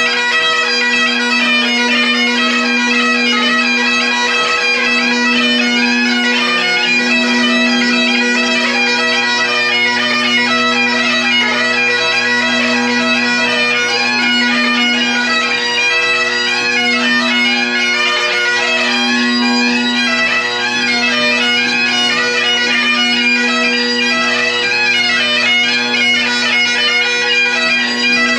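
Great Highland bagpipe played solo: steady drones sound under a quick chanter melody with rapid gracenote ornaments, unbroken throughout.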